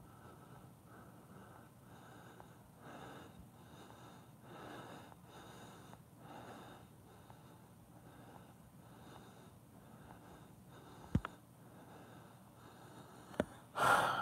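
A man breathing close to the microphone, soft breaths about once a second. Two sharp clicks come near the end, followed by a louder rush of breath.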